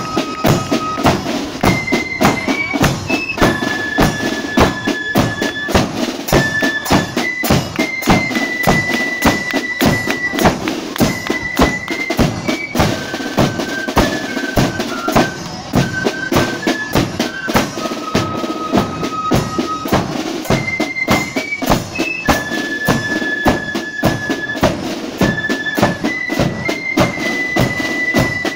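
Marching band playing a tune: a high melody on wind instruments over steady rattling side drums and a regular bass drum beat.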